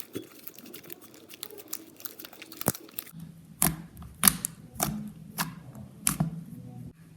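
Freshly made butter slime being squeezed and kneaded by hand, giving a run of small wet crackles and then about five sharp popping clicks over the last few seconds.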